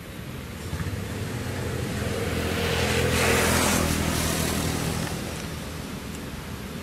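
A motor vehicle driving past, its engine sound swelling to a peak about three seconds in and then fading away.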